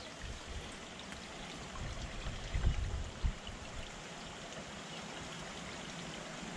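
Steady rushing outdoor background noise, with a few low rumbles about two to three seconds in.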